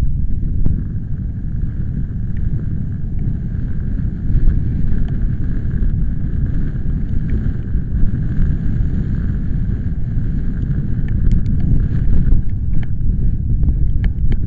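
Gusty storm wind buffeting the microphone: a loud, low rumble that swells and eases throughout.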